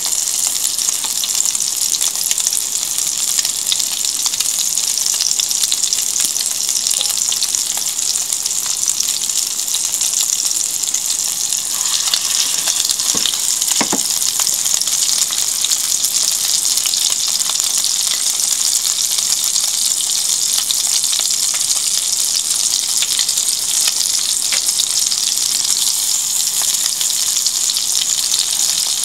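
Cod fish patties frying in shallow oil in a stainless steel pan: a steady, loud sizzle with fine crackling throughout. There are a couple of sharper clicks about thirteen seconds in.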